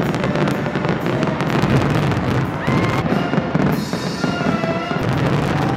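Fireworks display: a dense, continuous run of crackles and bangs from many bursting shells, with music playing along with the show.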